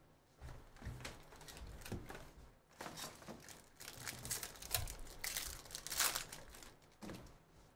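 Foil wrapper of a baseball card pack crinkling and tearing as it is opened by hand, in irregular crackles, loudest about five to six seconds in.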